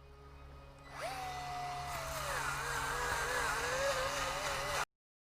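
Electric power tool motor starting about a second in, its pitch sagging and then wavering under varying load, and stopping abruptly near the end.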